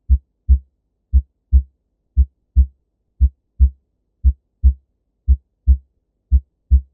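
Normal human heart sounds: the lub-dub of S1 and S2, seven beats at a little under one a second. The first sound of each pair is the mitral and tricuspid valves closing as the ventricles begin to contract. The second follows about 0.4 s later, as the aortic and pulmonary valves close at the start of relaxation.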